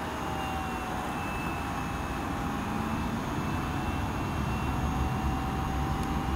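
Electric RC model Spitfire's brushless motor and scale four-blade propeller in flight, a thin steady whine that dips slightly in pitch about a second in. A low rumbling noise runs underneath and grows a little louder toward the end.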